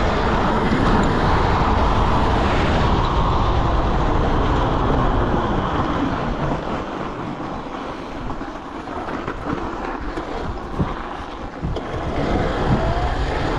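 A 72-volt Razor electric dirt bike being ridden over ice and slush: a steady rush of wind and tyre noise that dips in the middle and picks up again near the end, with a faint rising motor whine shortly before the end.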